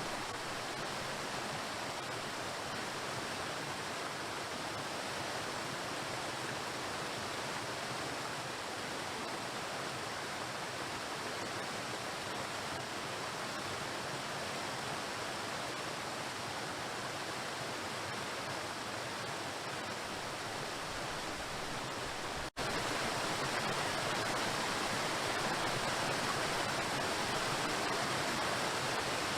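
Waterfall: a steady, even rush of water crashing onto rocks. About three quarters of the way through it cuts out for an instant and comes back slightly louder.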